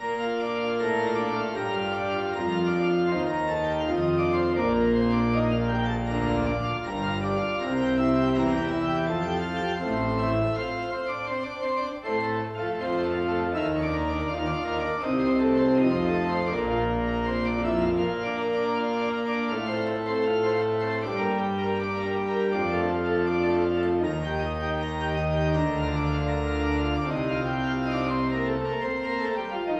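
Organ playing a postlude of held chords over deep bass notes, starting suddenly just after the service's closing words.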